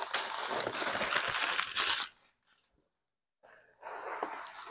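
Crinkled kraft packing paper rustling and crumpling as it is pulled out of a cardboard shipping box, for about two seconds. After a pause, softer rustling of the packing inside the box.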